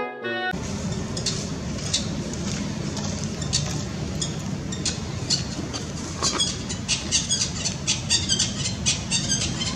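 Outdoor field ambience: a steady low rumble with a scatter of short, high chirps and clicks that grow busier in the second half. Brass-led music cuts off about half a second in.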